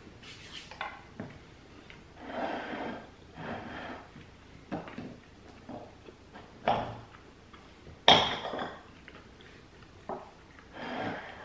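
Eating at a table: chewing and soft mouth sounds, with a table knife scraping and clinking against a plate as a crumb bar is cut. The sharpest clink, with a short ring, comes about two-thirds of the way in.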